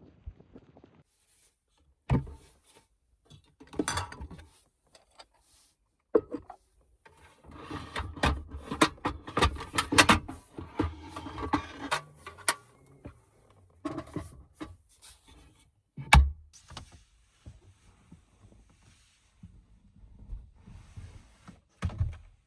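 Objects being handled at close range in a small space: scattered knocks and clicks with rustling, busiest in the middle, and one sharp knock about two-thirds of the way through.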